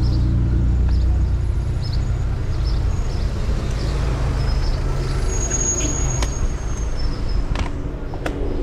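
Road traffic: a motor vehicle's engine running close by, its low rumble strongest over the first couple of seconds and then fading, with a few sharp clicks near the end.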